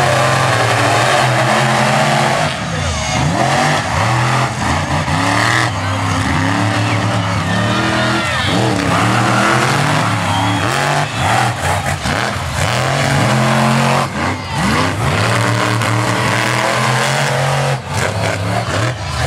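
Monster truck engines racing side by side. The throttle is opened and closed again and again, so the engine pitch rises and falls in a string of revs.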